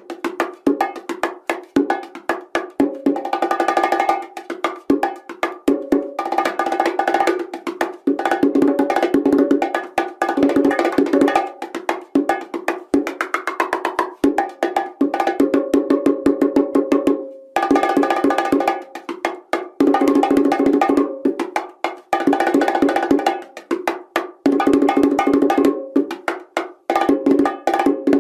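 Timbales played fast with sticks in rhythmic runs: a dense stream of sharp strikes over ringing drum tones, broken by a few short pauses.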